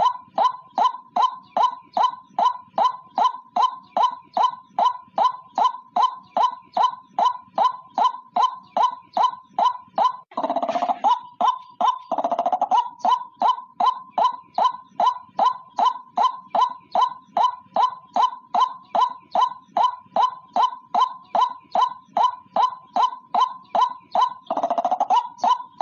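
White-breasted waterhen calling: a monotonous series of short, loud, ringing notes, about two and a half a second, broken a few times by a longer, rougher gurgling call.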